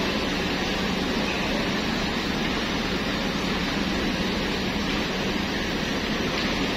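Parked coach buses idling: a steady engine and air-conditioning hum with a constant low drone.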